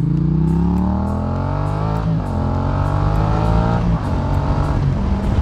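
Yamaha XSR700 motorcycle's parallel-twin engine accelerating through the gears. The pitch rises, then drops at an upshift about two seconds in, rises again, and drops at a second upshift about four seconds in.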